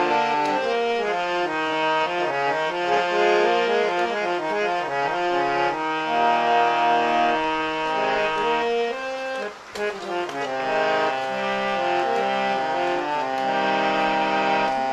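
Harmonium playing a melody over held chords, with a short break in the sound about two-thirds of the way through before it carries on.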